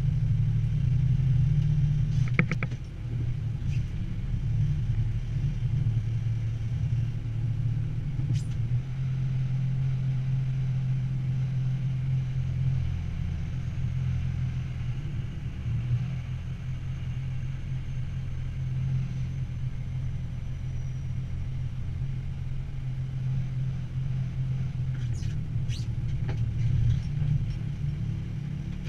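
Army truck engine running at low revs during slow manoeuvring, heard from inside the cab as a steady low drone whose pitch shifts slightly now and then. A few faint clicks come from the cab.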